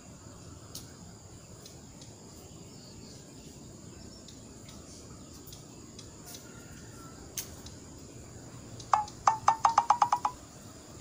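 Steady high-pitched drone of insects over a faint background, with a few scattered clicks. Near the end comes a quick run of about ten sharp, pitched clicks at roughly seven a second, rising slightly in pitch.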